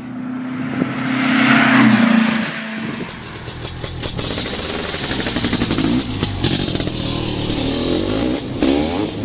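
A motor vehicle engine running and revving, its pitch rising to a loud peak about two seconds in, then settling into a busier, fluttering run.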